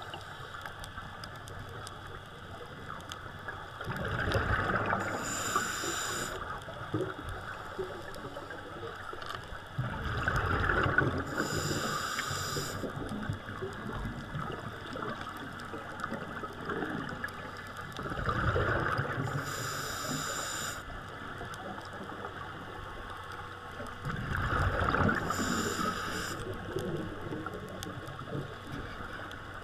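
Scuba diver breathing through a regulator underwater, four breaths about six to seven seconds apart, each a hissing intake and a rush of bubbling exhaust, over a steady underwater hiss.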